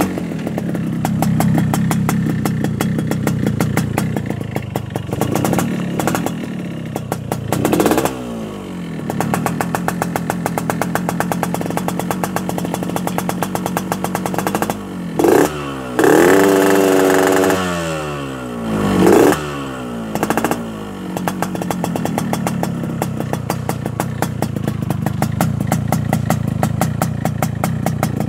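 Yamaha RX-King single-cylinder two-stroke motorcycle engine idling with a raspy, snoring note. It is blipped up in revs several times, with the longest and highest rev a little past the middle.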